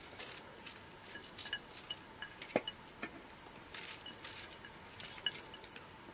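Small knife cutting into a peeled onion held in the hand: a run of quiet, crisp cuts and clicks, with one sharper click about two and a half seconds in.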